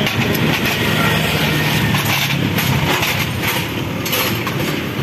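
Steady motor-vehicle noise, a constant rumble and hiss with no single event standing out.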